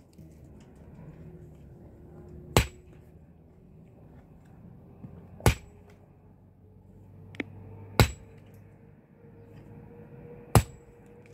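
Four hard blows of a metal tool, spaced about two and a half seconds apart, each with a brief high metallic ring, and a lighter tap between the third and fourth.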